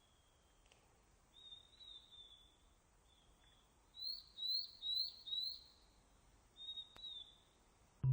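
A bird calling: thin, high whistled notes, with a run of four quick rising notes in the middle and a single note near the end.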